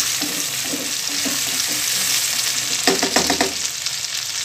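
Chopped onion and tomato sizzling steadily in hot oil in a karahi. A short run of sharp clicks comes about three seconds in.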